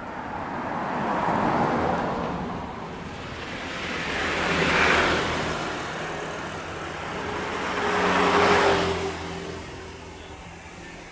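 Road vehicles passing close by one after another, three swells of engine and tyre noise a few seconds apart, each rising and fading away.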